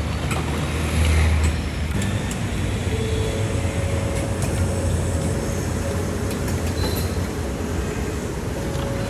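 Street traffic: motor vehicle engines running with steady road noise and a low rumble that swells about a second in.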